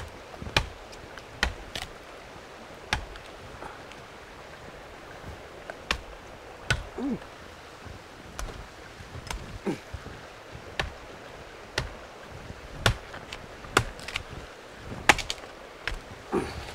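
Irregular sharp snaps and knocks, a few every couple of seconds, from vines and stems being pulled and broken by hand in dense forest undergrowth, with a few short low creaks mixed in.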